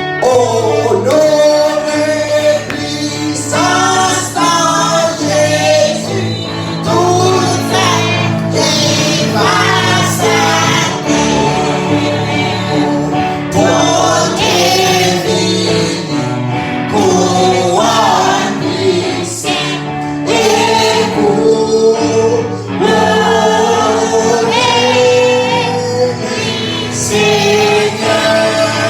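A group of men's and women's voices singing a gospel song together over steady instrumental accompaniment.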